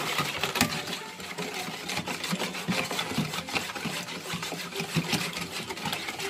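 A wire whisk beating a thin batter in a bowl, clattering rapidly and scraping against the bowl's sides, with many sharp ticks. It is mixing sugar into the milk, yeast and egg for a dough.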